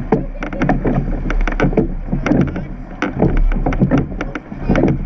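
Surf boat under oars: many sharp clicks and knocks of the oars working in their rowlocks, over a steady low rumble of water and wind.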